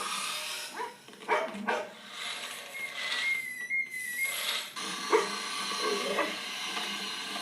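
Animated-film chase sound effects in which a dog barks several times. A short, high, nearly steady tone sounds a little past the middle.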